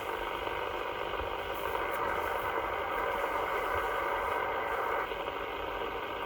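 CB radio receiver on single sideband putting out steady static between transmissions, a band-limited hiss with faint steady whistling carrier tones running through it.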